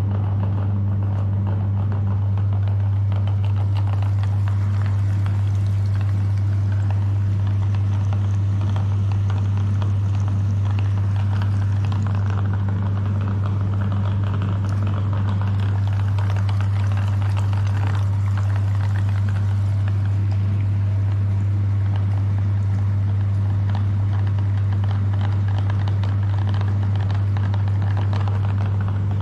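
Electric meat grinder running steadily with a low, even motor hum and a noisy grinding sound above it.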